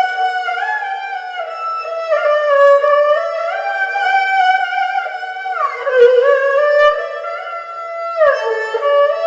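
Erhu playing a slow melody as a single bowed line, moving in held notes, with two downward pitch slides, one about six seconds in and one near the end.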